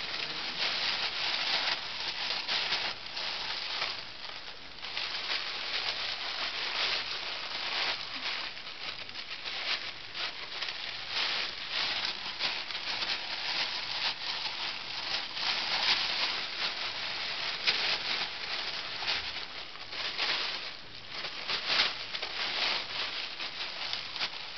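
Thin plastic carrier bag rustling and crinkling almost without pause as two ferrets burrow and wrestle inside it, with a couple of brief lulls.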